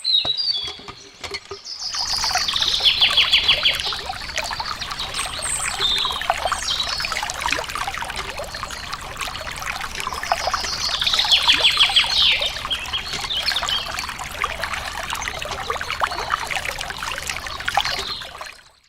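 Water pouring and trickling steadily from a miniature DIY water pump. It starts about two seconds in and stops abruptly just before the end. Birds chirp throughout, with a fast trill twice.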